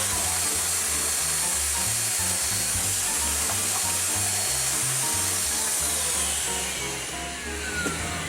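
Vacuum cleaner running steadily, sucking dust out of a glockenspiel's wooden box, then switched off about six seconds in, its motor whine falling as it winds down. Background music plays underneath.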